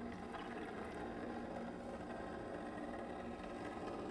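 Cuisinart ice cream maker's electric motor running with a steady, even hum as it churns the pre-frozen bowl against the paddle.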